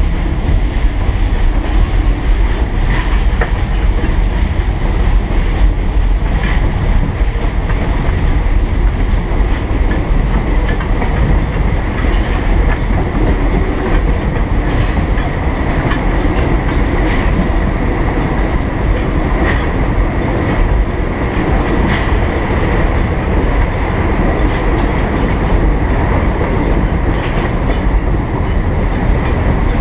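Steam train running along the track: a steady, loud rumble of the locomotive and cars rolling, with a light click every two to three seconds.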